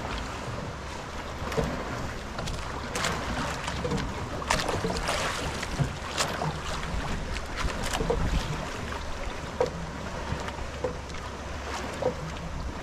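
Choppy sea water splashing and lapping against the hull of a small wooden outrigger boat, with wind rumbling on the microphone and a few scattered short splashes and knocks.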